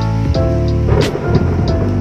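Background music with a steady beat: held keyboard-like chords, one sharp drum hit about a second in, and light ticks between.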